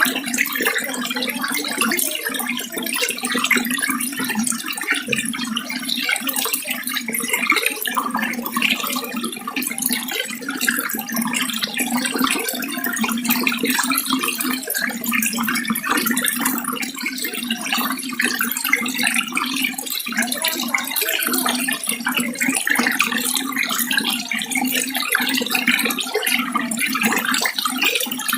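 Water running steadily without a break.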